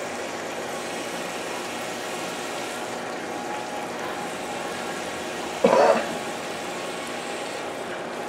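The twin small electric motors of a Syma Q9 Caesar RC speedboat running steadily as it drives around on a pool, a steady whine over a hiss. A person gives a brief cough a little before six seconds in.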